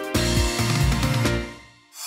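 Background music with a steady beat that fades out near the end, then starts up again.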